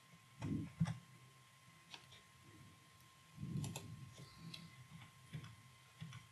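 Faint, scattered clicks of a computer mouse and keyboard, with a couple of soft low bumps about half a second in and past the midpoint, over a faint steady high tone.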